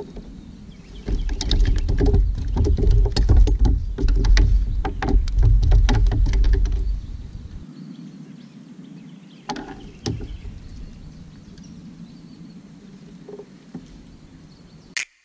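A bass being fought and lifted into a kayak: several seconds of splashing, knocking and rumbling against the hull with many sharp clicks, then quieter with a few scattered knocks.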